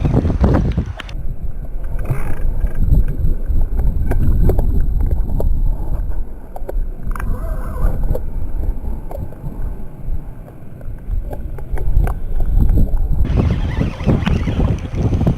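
Wind buffeting the microphone: a loud, gusting low rumble that rises and falls throughout.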